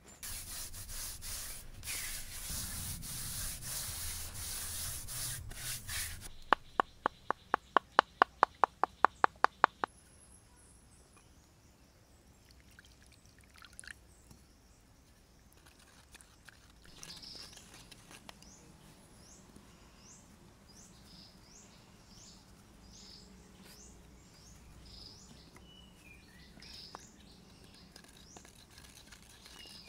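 Hands scraping and scooping loose soil out of a hole, followed by a quick run of about fifteen sharp taps, about four a second. After that it is quieter, with birds chirping again and again in the background.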